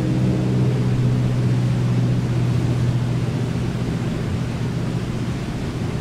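Steady low drone of a distant engine, weakening about four seconds in, over the constant rush of the river rapids.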